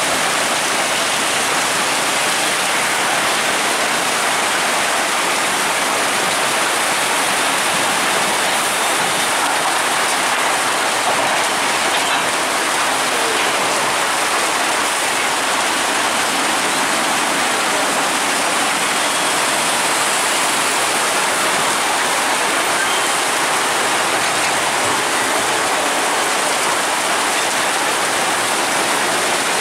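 Heavy rain pouring down: a loud, steady hiss of rain falling on a wet road.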